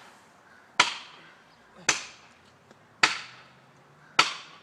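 Felling wedge being driven into the cut of an elm tree: four sharp strikes about a second apart, each ringing briefly.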